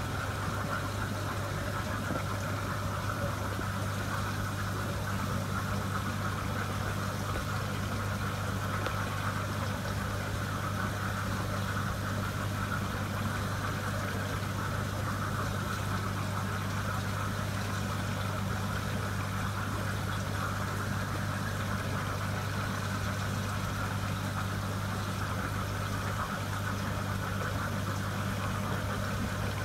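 Steady low hum of running aquarium equipment with a hiss above it, unchanging throughout.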